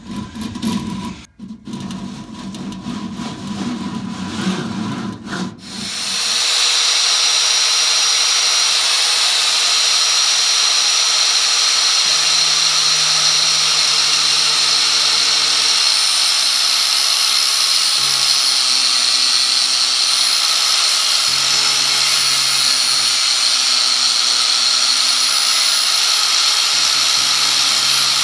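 Chicago Electric handheld angle grinder cutting through a stainless-braided rubber 10AN oil hose clamped in a vise. After a few seconds of knocks and rustling as the hose is handled, the grinder starts about six seconds in and runs with a steady, loud, high whine and hiss.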